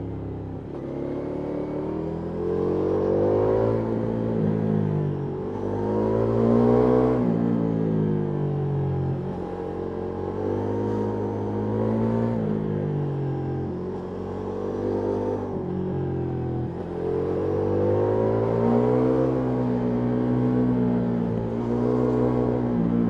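Ducati Multistrada V4S Rally's V4 engine through an Akrapovic exhaust, heard from on board, revving up and dropping back again and again as the bike accelerates and slows.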